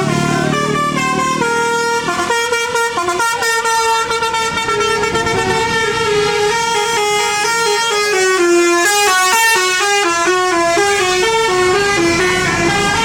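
Indonesian bus 'telolet' horn, a multi-tone electric horn set playing a quick melody of notes stepping up and down, loud and continuous. A bus engine runs low underneath for the first couple of seconds.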